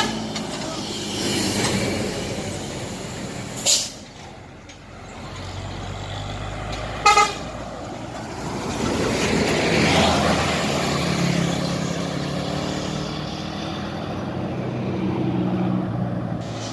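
Buses passing with their diesel engines running, broken by two short blasts: a high one about four seconds in and a brief horn toot about seven seconds in. A vehicle passes close around ten seconds in, and engine rumble carries on after it.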